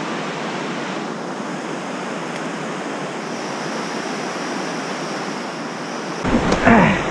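Steady rushing of a whitewater river. A short human vocal sound comes in near the end.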